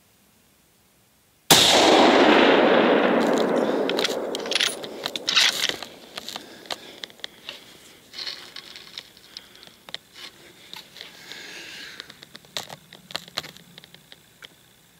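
A 7mm SAUM rifle shot about a second and a half in, its report echoing and fading over several seconds, followed by a scatter of sharp metallic clicks and clinks.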